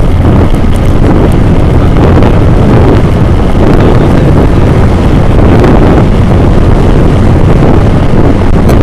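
Steady, loud wind buffeting on an action camera's built-in microphone while it travels along a road at speed, over the running of the vehicle carrying it.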